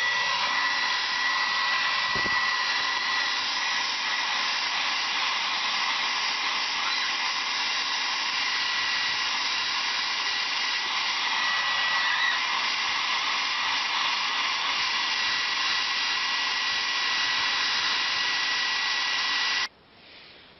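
Hair dryer blowing steadily: an even rushing whirr with a thin, constant whistle in it. It cuts off abruptly about a second before the end, leaving only a faint background hiss.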